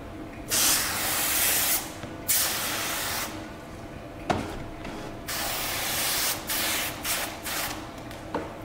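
Spray wand on a hose misting water onto a car's door window glass to wet it for tint film. There are three hissing sprays of about a second each, then several short quick ones, with a sharp click about four seconds in.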